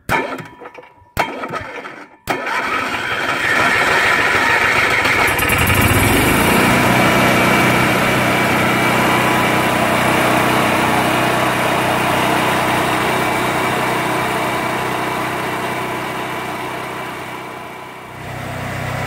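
Cummins Onan QG 4000 RV generator's single-cylinder gasoline engine being started: a few short stop-start bursts, then the starter cranks for about three seconds before the engine catches and settles into a steady run. It is cranking longer than usual because the fuel line to the carburetor was empty and had to fill from a can of gasoline and Seafoam. The sound fades briefly near the end, then resumes.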